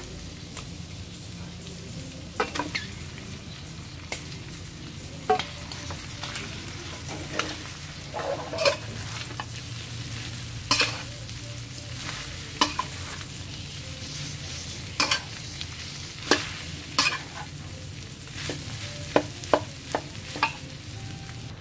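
Metal spatula scraping and knocking against a stainless steel pan as fried rice is stirred and tossed, with irregular sharp clinks every second or two over the steady sizzle of the rice frying.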